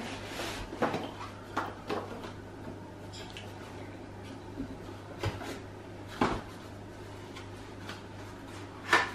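Cardboard shoe box and its paper contents being handled: scattered short knocks and rustles of card and paper, the loudest one near the end.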